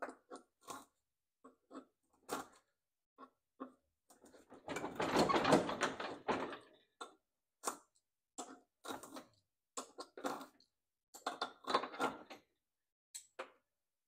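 Twine being picked and cut from around a riding-mower deck's blade spindle with a hand tool: scattered small clicks and scrapes, a longer rasping scrape about five seconds in, and another cluster of scrapes near twelve seconds.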